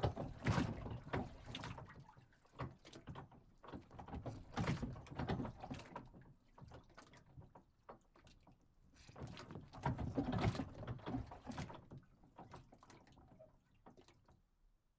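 A dock moving on water: irregular knocks and creaks with water sloshing, coming in slow swells and fading out near the end.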